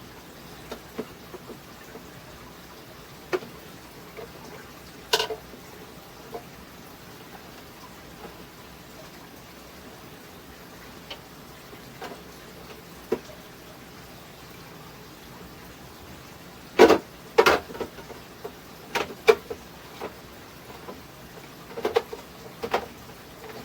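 Scattered clicks and knocks of food containers and packages being handled and set down on refrigerator shelves, with a cluster of louder knocks about two-thirds of the way through and a few more near the end.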